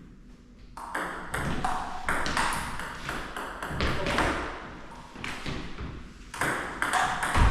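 Table tennis rally: the ball clicking off bats and table in a quick run of hits.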